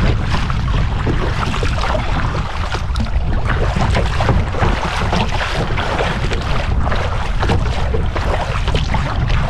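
Strong wind buffeting the microphone in a steady low rumble, with choppy lake water splashing and slapping against a kayak's bow.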